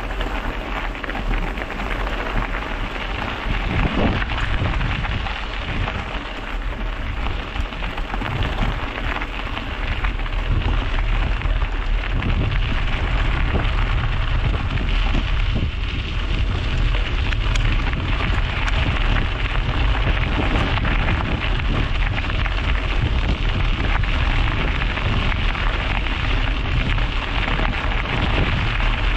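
Steady rushing noise of a bicycle ride heard through an action camera's microphone: wind buffeting the mic with a deep rumble, over the sound of tyres rolling on the road. It gets a little louder about a third of the way in.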